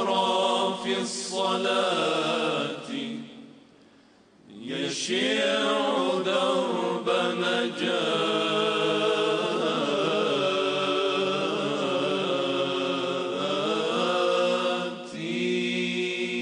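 A group of men sings an unaccompanied Arabic devotional chant in long, drawn-out melismatic notes. A phrase fades about three seconds in, and after a short breath a long held line starts about five seconds in; a new phrase begins near the end.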